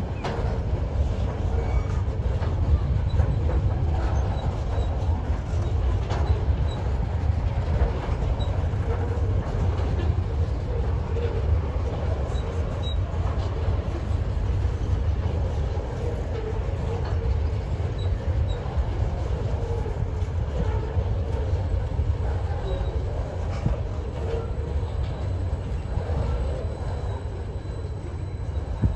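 TasRail container freight wagons rolling past at steady speed: a continuous deep rumble of steel wheels on rail with faint clicks, the loudness holding even.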